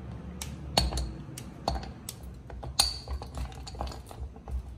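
Metal spoon clinking and scraping against a glass bowl while stirring chocolate pieces melting over a double boiler, with many irregular sharp clinks over a steady low rumble.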